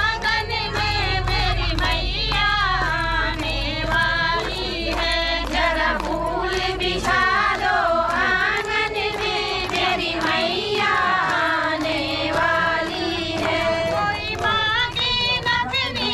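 A group of women singing a devotional bhajan together, keeping time with rhythmic hand-clapping.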